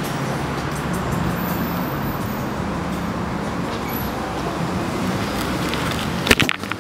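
Steady rumble of road traffic, with a short cluster of sharp knocks near the end.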